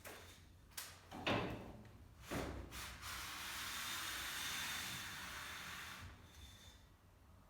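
A few knocks and clatters of handling, then an aerosol spray can hissing steadily for about three seconds before cutting off.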